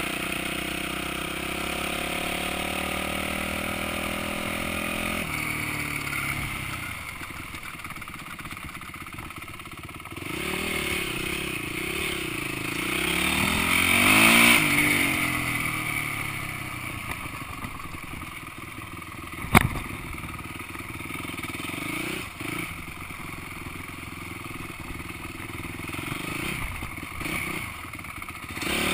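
Enduro dirt bike engine heard from on board: its pitch falls as the bike slows over the first five seconds, then it revs up to its loudest about fourteen seconds in and falls away again. A single sharp knock comes about twenty seconds in, and there are short throttle blips near the end.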